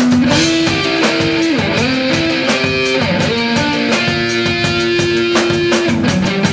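Rock band playing: an electric guitar holds a line of sustained notes that step in pitch every half second or so, over busy drums and cymbals.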